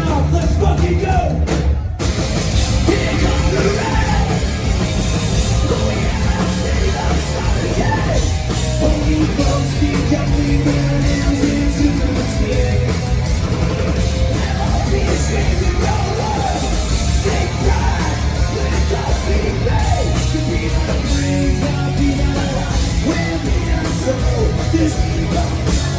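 Punk rock band playing live at full volume, with shouted, yelled vocals over drums and guitars. The band cuts out for a moment about two seconds in, then plays on.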